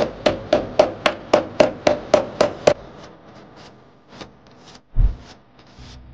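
A hand hammer striking the steel door hinge of a Mahindra Bolero in a steady run of about eleven blows, roughly four a second, stopping a little under three seconds in. After that come quieter rubbing sounds and one low thump about five seconds in.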